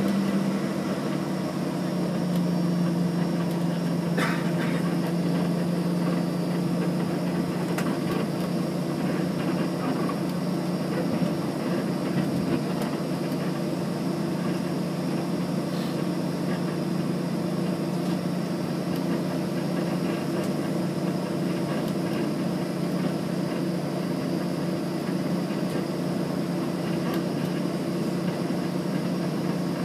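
Aircraft engines running steadily while taxiing, heard from inside the passenger cabin: a constant low hum with a thin, high, steady whine above it.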